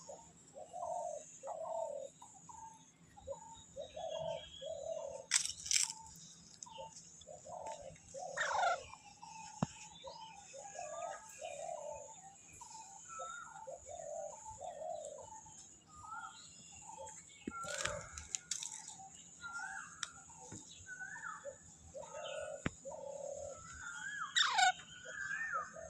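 Baby Alexandrine parakeet calling: a long run of short, low chirps, several a second, with a few louder shrill squawks scattered through and higher chirps near the end.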